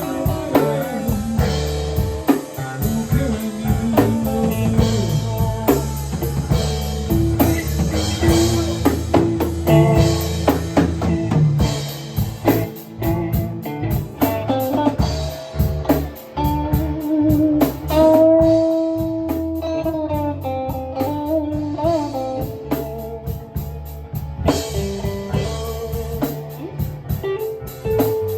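Live blues-rock band playing an instrumental passage: electric guitar lead with bent, sustained notes over bass and drum kit.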